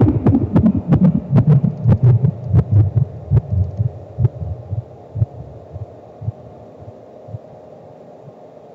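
Live electronic noise music: irregular low pulses with sharp clicks, about two or three a second, thinning out and fading over about five seconds into a quiet, steady low drone.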